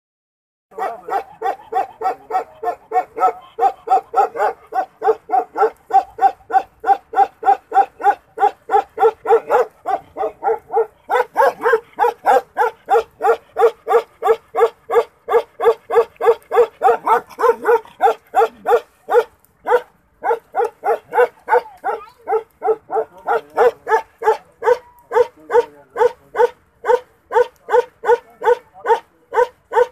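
Bakarwal dog, a livestock guardian breed, barking over and over in a long, evenly paced run of barks, about two to three a second, with hardly a pause.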